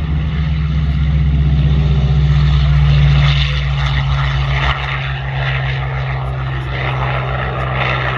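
WWII propeller fighter plane, a Bell P-39 Airacobra, with its piston engine at takeoff power as it lifts off and climbs, giving a loud steady drone. The drone swells over the first few seconds, then drops suddenly in level about halfway through.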